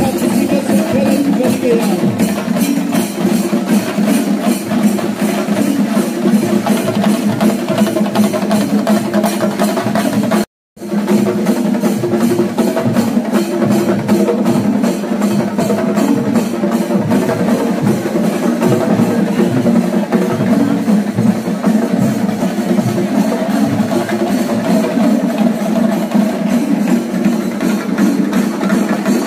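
Festival procession percussion ensemble playing loud, fast, steady drumming with sustained pitched tones underneath. The sound cuts out completely for an instant about ten seconds in, then resumes.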